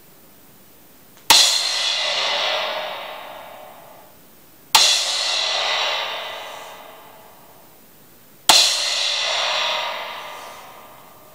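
Homemade O-Zone-style crash cymbal, an old crash with large holes drilled through it, struck three times with a drumstick, each crash ringing out and fading over about three seconds. The holes give it a trashy crash sound, between a normal crash and a china cymbal.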